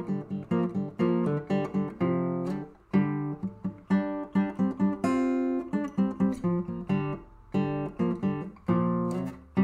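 Background music: acoustic guitar playing a run of plucked notes, several a second.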